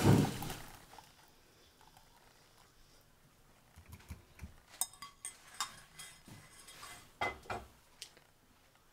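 Hot thyme infusion poured through a strainer, trailing off within the first second. Then a run of scattered clinks and knocks of kitchen utensils against dishes.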